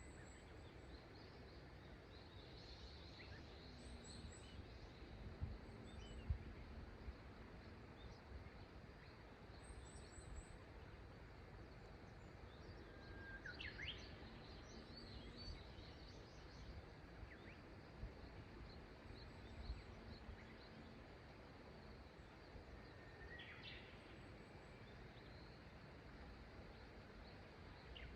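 Faint riverbank ambience: the soft, steady rush of a river with scattered high bird chirps and two short upward-sweeping calls, one about halfway and one near the end. A couple of low knocks come about a fifth of the way in.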